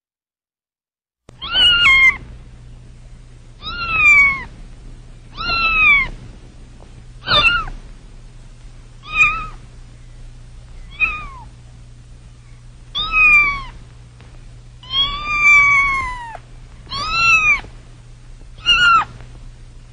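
Black cat meowing repeatedly, about ten meows a second or two apart, most falling in pitch at the end and one longer drawn-out meow near the end, over a faint steady low hum.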